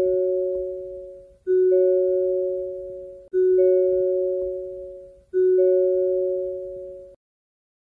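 Hyundai car's door-open warning chime: a two-tone ding-dong, low note then a higher note, each fading away and repeating about every two seconds. It cuts off suddenly about seven seconds in.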